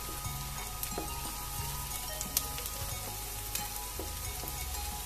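Chopped onions and green chillies sizzling in hot mustard oil in a non-stick kadhai as they fry toward light brown, stirred with a spatula that scrapes and taps the pan a few times.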